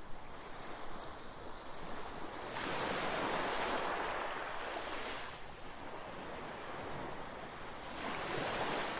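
Surf noise from an artificial wave breaking and washing along a PerfectSwell wave pool. It is a steady rushing hiss that grows louder about two and a half seconds in, eases, and swells again near the end.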